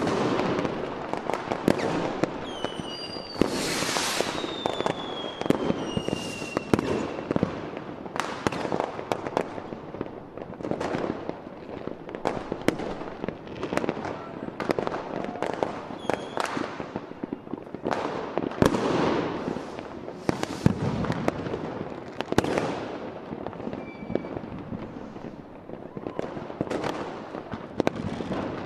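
Fireworks display: aerial shells going off in an irregular string of bangs, each trailing a short rumble. A few whistles fall in pitch a few seconds in.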